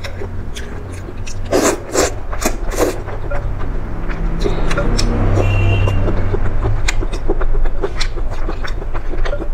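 Close-up eating sounds of a person chewing chicken feet: wet mouth clicks and lip smacks, strongest about two seconds in, over a steady low hum.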